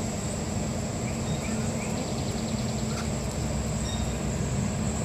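Steady rumble and hum of a Chondola cabin running along its haul cable, heard from inside the enclosed car.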